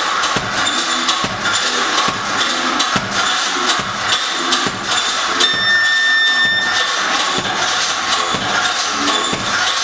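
Boxing gloves punching a heavy bag in fast combinations: a steady run of thuds, several a second, over a continuous noisy background. A high steady tone sounds for about a second around the middle.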